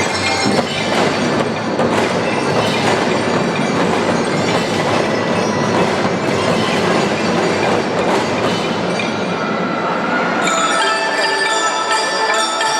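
Children's marching band playing a dense percussion passage, a wash of drums and cymbals with no clear tune. About ten seconds in, pitched bell-lyra and mallet notes come back over the drums.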